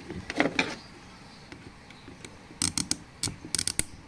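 Sharp clicks and clatter of small parts being handled, with a quick run of them from about two and a half to four seconds in.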